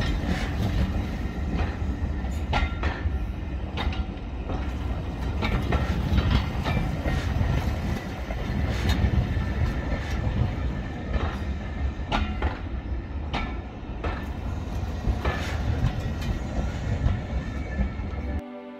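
Train running on the track: a heavy rumble with wheels clicking and knocking over the rail joints. It cuts off suddenly near the end.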